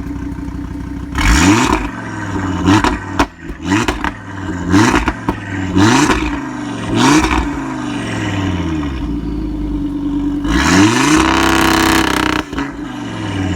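Audi RS3 8V's turbocharged 2.5-litre five-cylinder engine revved from idle in a series of short, sharp blips that rise and fall back, then one longer rev held for about two seconds near the end.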